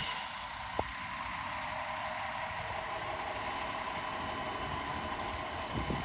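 Fire engine's diesel engine idling steadily after being started, with a single faint click about a second in.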